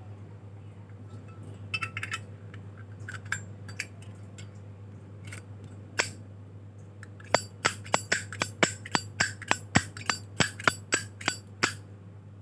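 Metal Zippo lighter lid being flicked open and snapped shut: a few scattered metallic clicks, then a quick, even run of about fifteen sharp clinks, roughly three a second, over the last five seconds.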